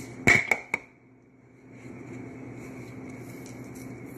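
Three sharp clicks in quick succession, kitchen handling noise, then a faint steady hum.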